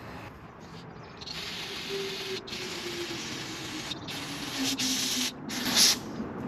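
Spray hissing in several bursts, each cut off sharply, while a gummy carburetor fuel jet is cleaned. The hiss starts about a second in, and the last burst near the end is the loudest.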